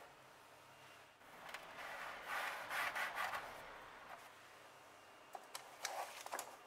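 Stainless steel pastry ring pressed and twisted through shortcrust dough against a wooden pastry board, a soft rubbing scrape from about one second in to about four seconds. A few light taps near the end as a cut dough circle is laid on the baking tray.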